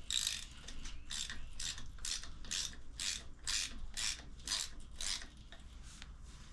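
Hand socket ratchet clicking in about a dozen short strokes, two a second, as 10 mm bolts on a motorcycle clutch cover are worked loose. The strokes stop about five seconds in.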